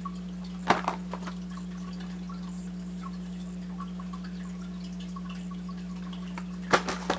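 A steady low hum, with a couple of short plastic clicks from a blister pack of razor cartridges being handled and turned over, one about a second in and a few more near the end.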